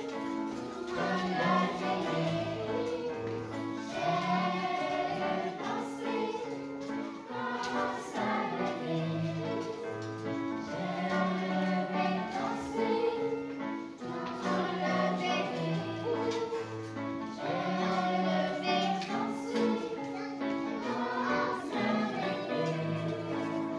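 Children's choir singing a song over instrumental accompaniment with a steady, stepping bass line.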